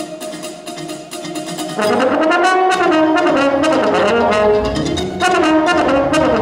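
French horn playing with a prerecorded electronic tape accompaniment. A quieter held note opens, then about two seconds in the horn comes in louder with a line that rises and falls in pitch, over rapid clicking pulses.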